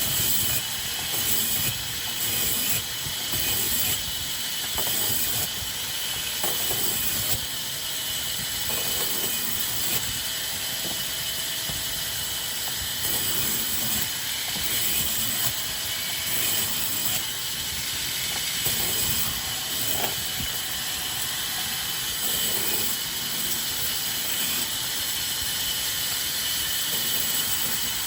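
Sawmill wood-cutting machinery running, a steady loud hiss with faint clatter and knocks underneath.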